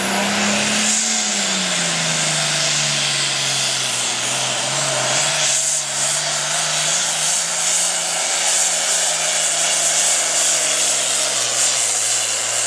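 International Harvester super farm pulling tractor's diesel engine running flat out under the load of the sled, a loud steady drone. Its pitch climbs in the first second, eases down over the next two, then holds, sagging a little near the end.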